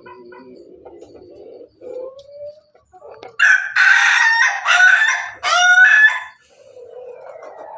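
Chickens clucking softly and low, then a rooster crows loudly about three and a half seconds in. The crow is a long one of nearly three seconds in three linked parts, and the last part rises in pitch.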